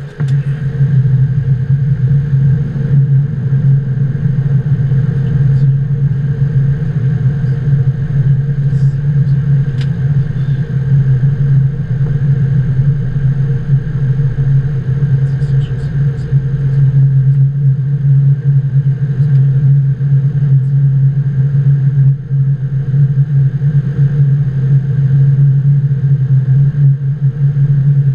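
Steady flight-deck noise inside a Boeing 777-200 on approach: a constant low hum of airflow and engines, with fainter steady tones above it and a few faint clicks.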